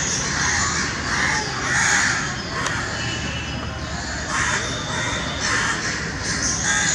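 A squirrel calling, a run of repeated short harsh calls, about one or two a second.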